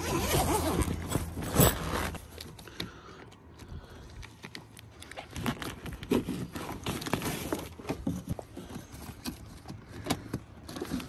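Heavy vinyl of a deflating inflatable slide being handled, rustling loudly for the first couple of seconds, then scattered knocks and clicks as a strap and its metal buckle on the blower tube are worked.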